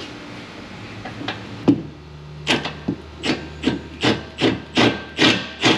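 Ratchet worked in quick strokes on a bolt of the fuel-tank strap bracket: a rasping run of clicks about two and a half times a second, following a single knock, as the bolt is loosened.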